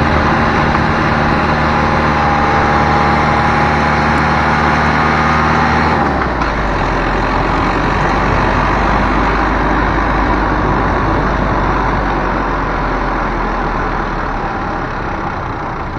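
Car engine running with a steady droning hum; about six seconds in the tone changes to a rougher, more even rumble that slowly fades.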